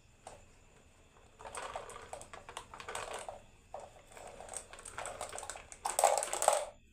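Marbles rolling and clattering down a wooden HABA marble run: a dense, rapid rattle of clicks that starts about a second and a half in, comes in runs with short gaps, and is loudest near the end before stopping.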